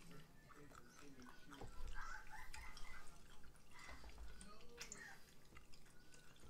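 Faint scattered clicks and taps of tableware at a dining table, with low murmured voices.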